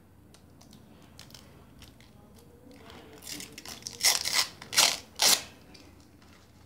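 Plastic packaging rustling and crinkling as phone accessories are handled, with a cluster of several loud crinkles from about four seconds in.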